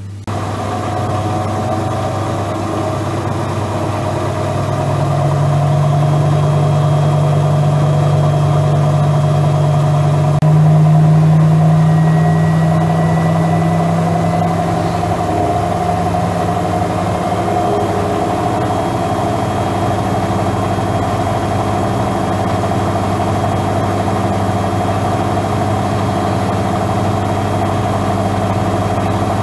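A Regal 8121 washing machine starting a 1000 rpm spin. Its drain pump, driven by a standard asynchronous (induction) motor, hums steadily while the drum spins up, and a stronger tone comes in about five seconds in and steps up slightly after about ten seconds. The drain pump's hum is the noise that spoils the machine's 'ultra silent' claim.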